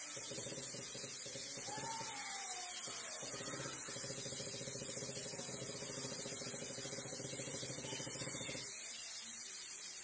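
Steady electrical buzz from a hybrid solar inverter, cutting off suddenly about a second before the end, over a constant hiss.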